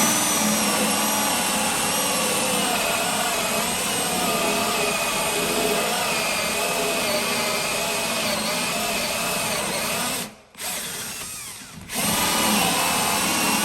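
Power drill turning a Milwaukee Hole Dozer hole saw as it bores through a wood door, running steadily with a wavering whine. It stops briefly about ten seconds in, runs lighter for a moment, then picks up again.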